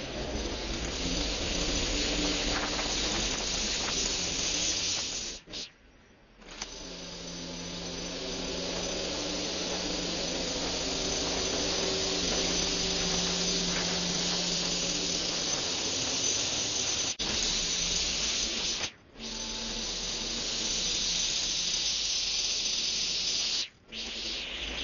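Petrol string trimmer running at high revs, its nylon line cutting through grass, with a steady hissing whir over the engine tone. It stops briefly three times.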